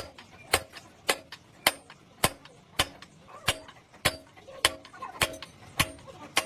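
Evenly paced hammer blows on metal, just under two a second, each a sharp strike with a short ring.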